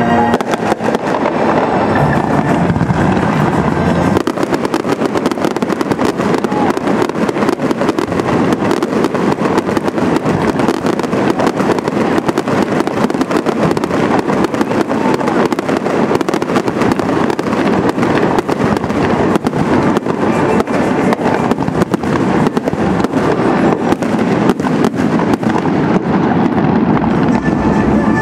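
Aerial fireworks display: a few seconds of scattered bangs, then from about four seconds in a dense, continuous barrage of bangs and crackles, many each second.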